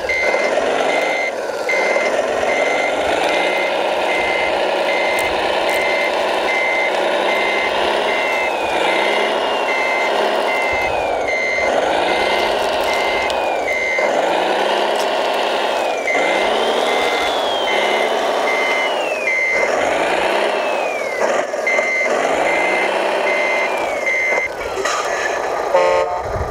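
1/14-scale RC Mercedes-Benz Arocs 8x8 dump truck reversing with a trailer: its sound module gives a steady, regular reversing beep over a motor sound that rises and falls in pitch again and again as it manoeuvres. The beeping stops near the end.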